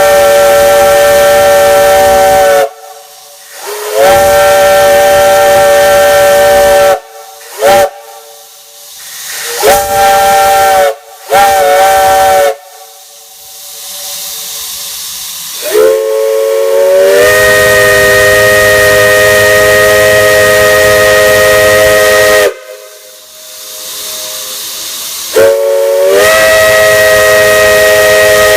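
Loud multi-chime steam whistle sounding a chord of several tones, blown in a series of short and long blasts, each sliding up in pitch as it opens. Steam hisses between the blasts.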